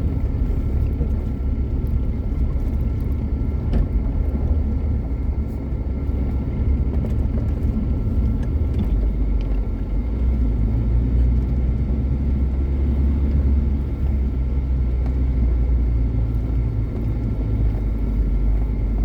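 A motor vehicle driving, its engine and road noise making a steady low rumble that drops lower about nine seconds in.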